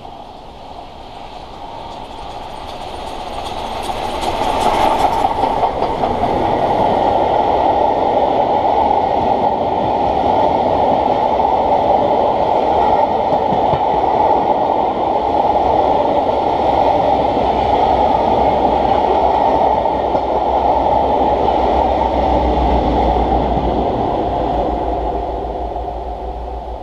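LNER Peppercorn A1 Pacific steam locomotive 60163 Tornado and its train of coaches passing at speed: a rush that builds as it nears, a loud burst of hiss about five seconds in, then a steady rumble and rattle of coach wheels on the rails that fades near the end.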